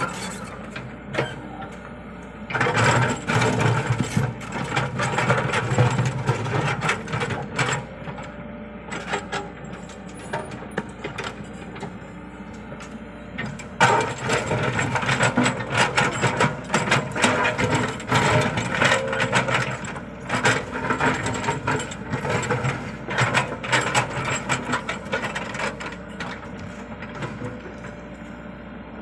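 Komatsu PC75UU excavator's diesel engine running as the machine works, with many metallic clanks and rattles. The engine load and the clatter rise in two long stretches, one a few seconds in and one from about the middle until near the end.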